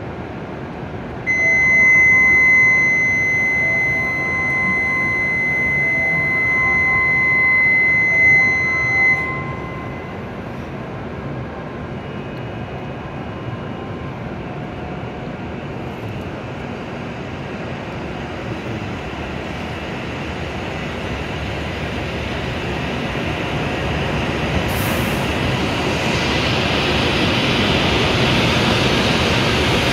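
A steady, high door-closing warning tone starts about a second in and stops about nine seconds in, as the train doors and platform gates close. Then the W7-series Shinkansen train pulls out of the station, its running noise building steadily toward the end.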